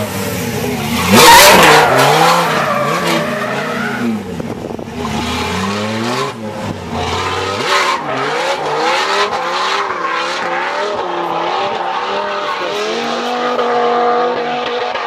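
Dodge Viper drift car's V10 engine revving up and down hard as the car drifts, with tyre squeal. It is loudest as the car slides close by about a second in, then carries on farther off, rising and falling with the throttle.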